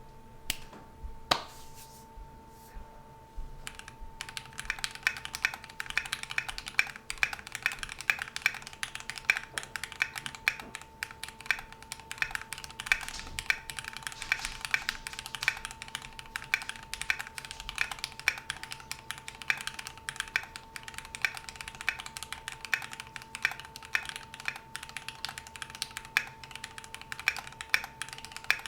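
Typing on a Keychron Q2 mechanical keyboard fitted with Gateron Brown tactile switches lubed with Krytox 205g0 and a tape mod. A few separate keystrokes come first, then steady, fast typing from about four seconds in.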